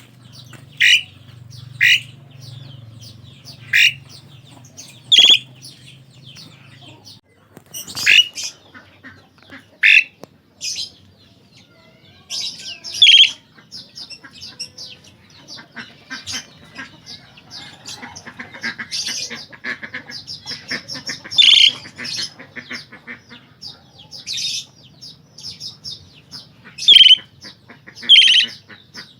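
Asian pied starling (jalak suren) calling: loud, sharp squawks that drop in pitch, repeated every second or two, with a run of fast chattering through the middle.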